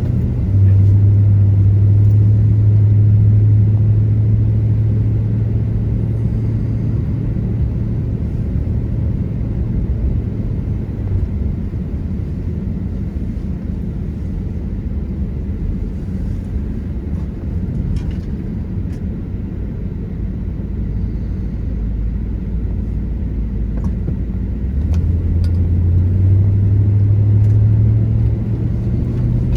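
Inside a car's cabin while driving on a snow-covered road: the steady low drone of the engine over tyre and road rumble. The drone is stronger for roughly the first ten seconds and again near the end.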